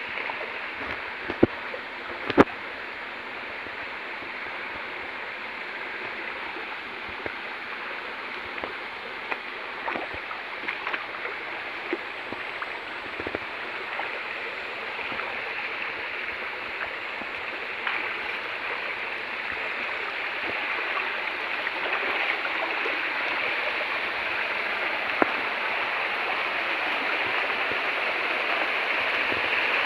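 Shallow stream rushing steadily, slowly growing louder, with scattered short splashes and knocks from people wading through the water.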